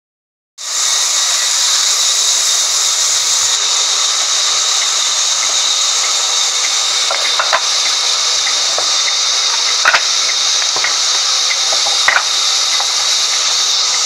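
Log band saw running with a steady high hiss as it slices a mahogany log, with a few light knocks and scrapes about halfway through and near the end.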